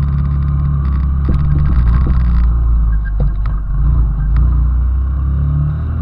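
Small 90cc single-cylinder motorcycle engine running at a steady pitch while riding, with a few light clicks.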